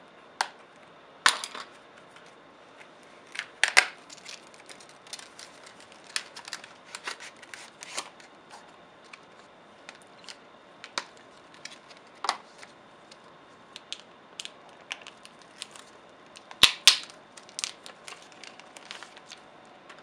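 Irregular clicks, taps and crinkles of a 2.5-inch SanDisk Extreme solid state drive being unpacked from its plastic packaging and handled, with a few louder clacks about a second in, near four seconds and around sixteen to seventeen seconds.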